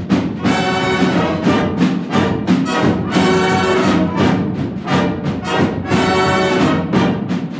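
A high school marching band playing, with the brass section sounding short, punched chords in a steady rhythm.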